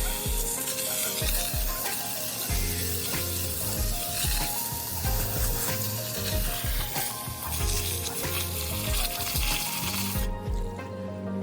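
Pressure washer spray hissing steadily against the tractor over background music with a steady beat. The spray cuts off a little before the end, leaving the music.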